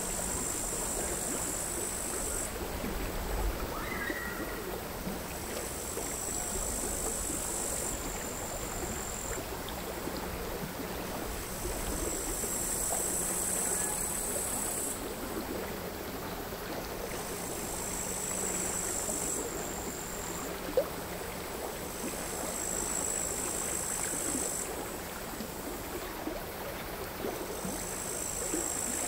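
Crickets singing in high-pitched buzzing spells of two to three seconds, one after another, over the quiet, irregular lapping of small sea waves. A single sharp click sounds about three-quarters of the way through.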